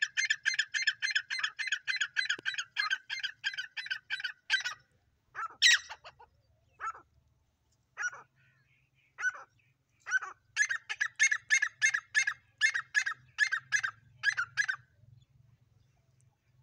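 Grey francolin (titar) calling: a run of loud, harsh, repeated notes at about three a second for nearly five seconds, then a few scattered single notes, then a second run from about ten seconds in that stops near the end.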